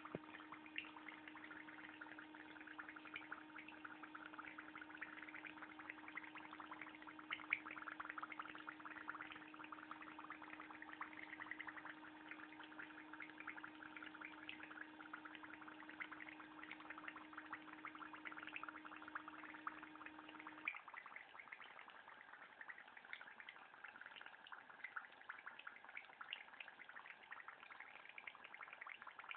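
Faint, steady crackling sizzle of a french fry frying in oil in a pan. A low steady hum runs under it and cuts off about two-thirds of the way through.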